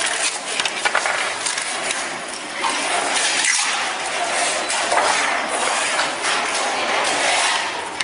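Coil-winding machine spinning copper wire onto small transformer bobbins: a steady hissing whir that swells and eases a few times, with small clicks as the bobbins are handled.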